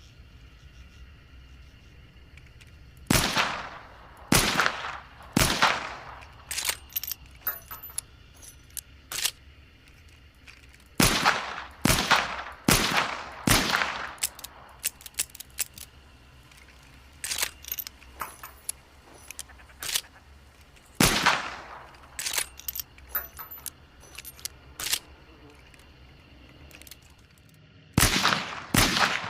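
Sharps Model 1 four-barrel derringer firing: sharp single shots, each with a short fading ring, in groups of three, then four, then one, then two. Quieter metallic clicks and rattles come between the groups.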